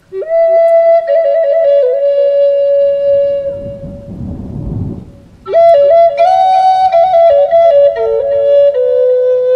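Native American-style flute (pimak) in G playing a held, lightly ornamented melody. It pauses about three and a half seconds in while a rumble of thunder swells, then picks up the melody again a little after five seconds.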